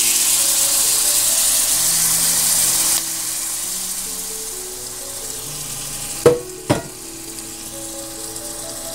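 Beans poured into hot bacon grease and browned onions in a frying pan, sizzling loudly for about three seconds and then more quietly as the pan settles. Two sharp knocks about six seconds in.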